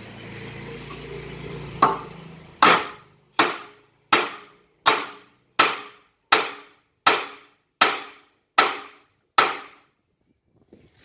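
Hammer blows during the teardown of a generator alternator: about ten strikes at a steady pace of a little under one and a half a second, each ringing briefly. Before the blows there is a steady rush with a low hum.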